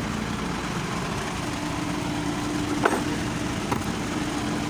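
Isuzu 4HK1 four-cylinder diesel engine idling steadily, running again now that its loose power terminal has been tightened. A single sharp click comes about three seconds in.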